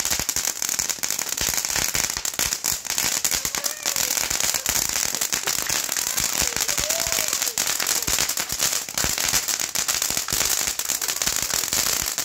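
Handheld stick firework fountain burning and spraying sparks: a steady hiss with dense, rapid crackling that goes on without a break.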